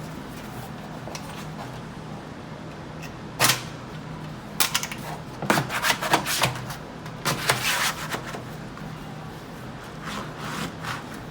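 Wallpapering handling noises: a series of sharp taps, knocks and paper rustles, bunched between about three and eight seconds in, with a few fainter ones near the end, over a steady low hum.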